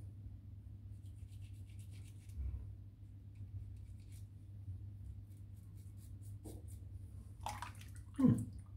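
A razor blade scraping through stubble and lather in runs of short, faint, scratchy strokes, with a brief louder sound near the end.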